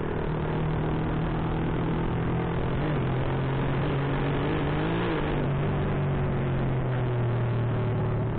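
Honda Supra single-cylinder four-stroke underbone motorcycle running at a steady cruise, with wind rushing over the microphone. The engine note shifts slightly about three seconds in and bends up and down around five seconds in.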